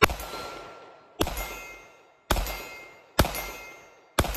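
Five 9mm shots from a Canik TTI Combat pistol, about one a second, each followed by the ringing of the steel target plate being hit.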